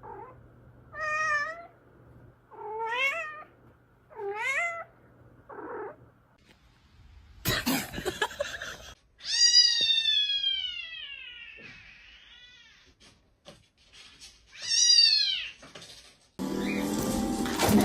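A cat meowing over and over: about five short, wavering meows, then a long drawn-out meow that falls in pitch, and one more meow a few seconds later.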